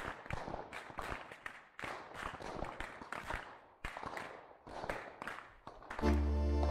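Long rope whips on wooden handles cracking over and over, two at once, giving an irregular run of sharp cracks, several each second. Music comes in suddenly near the end.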